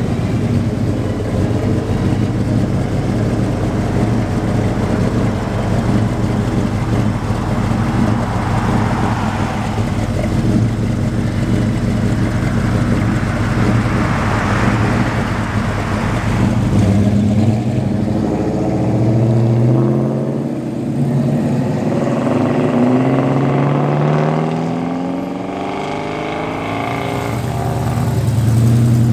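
The engine of a hot-rodded early-1950s Chevrolet sedan delivery rumbling at low speed, then revving up in several rising pulls as it accelerates away. Near the end a second engine, from a hot-rod Ford pickup, grows loud as it comes close.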